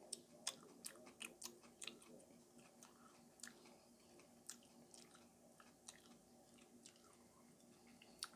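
Faint chewing of a raw Gator Jigsaw chili pepper: soft crunches and wet mouth clicks, several a second at first, then more spread out.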